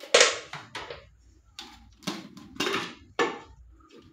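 Kitchen clatter: several sharp knocks and clanks of utensils and containers being handled and set down, the loudest right at the start.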